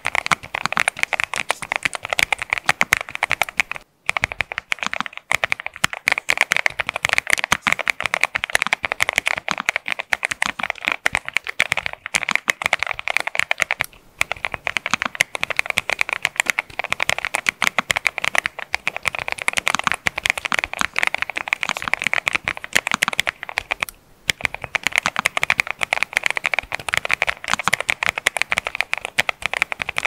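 Fast typing on a NuPhy Nos75 low-profile mechanical keyboard: a dense, continuous stream of keystroke clacks. It comes in takes about ten seconds long, with brief pauses about 4, 14 and 24 seconds in as the build changes: polycarbonate plate on silicone strips, FR4 plate on silicone beans, and FR4 plate top-mounted.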